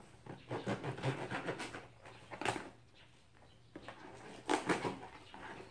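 Cardboard shipping box being cut open: packing tape slit and cardboard flaps scraping and rustling in irregular bursts, with a short lull in the middle.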